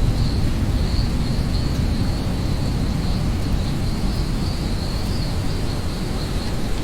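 Steady rain ambience with a heavy low rumble, and a chorus of insects chirping in a continuous high band over it.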